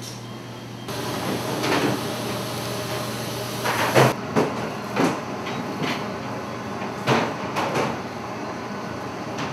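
Kitchen work noise: a steady hum and a wash of background noise, broken by a series of sharp clatters and knocks as metal baking pans and cake tins are handled and set down. The loudest clatter comes about four seconds in, with more over the next few seconds.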